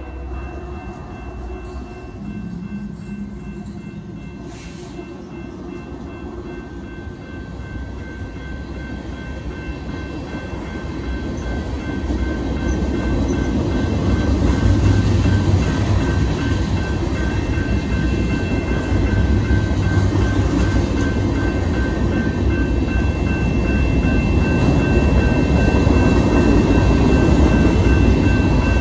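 A BNSF manifest freight train's cars rolling through a grade crossing, their rumble on the rails growing louder from around the middle. Over it, the crossing's electronic bells (GS and WCH Type 2 e-bells) ring with a rapid, steady repeat.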